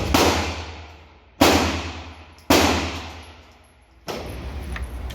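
A string of handgun shots, one every second or so, each cracking out and ringing away in the echo of an indoor shooting range.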